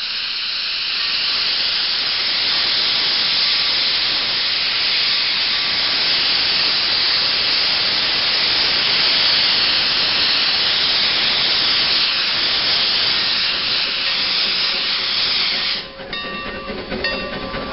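Shay geared steam locomotive venting steam low along its side: a loud, steady hiss that swells over the first second and holds. Near the end the hiss stops abruptly, leaving quieter clicks and faint tones.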